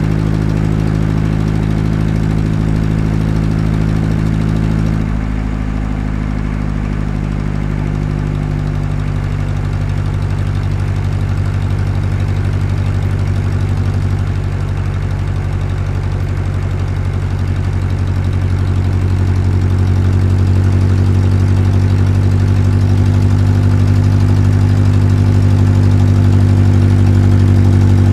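Diesel engine of heavy construction machinery running steadily, its tone shifting abruptly about five seconds in and growing louder over the last third.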